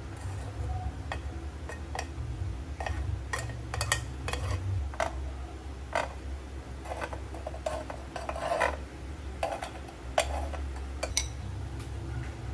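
Knife scraping and tapping against the nonstick waffle plates of a sandwich maker while spreading butter: a run of light clicks and scrapes, busiest between about five and nine seconds in, over a steady low hum.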